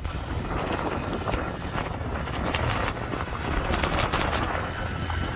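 A small motorcycle running as it is ridden along, under heavy wind buffeting on the microphone.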